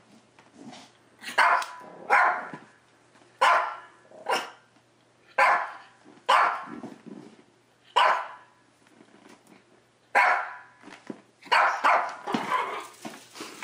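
Pomeranian puppy barking repeatedly at a Chucky doll, about a dozen short, sharp barks in uneven groups with brief pauses between them.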